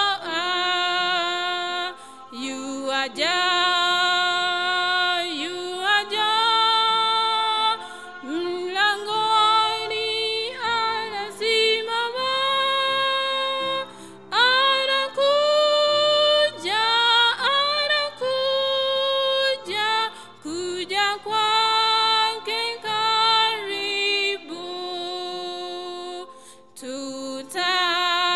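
A woman singing a hymn solo into a microphone, holding long notes.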